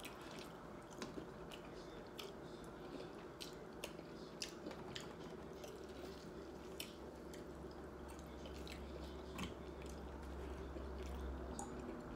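A person chewing a crunchy hard-shell taco close to the microphone, with irregular faint crunches and wet mouth sounds over a steady low hum.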